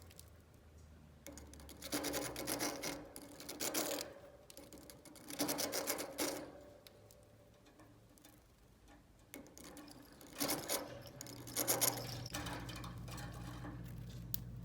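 Budgie beaks gnawing and scraping at a cuttlebone in several short bouts of rapid rasping, each lasting up to about a second, with pauses between. A low steady hum sets in near the end.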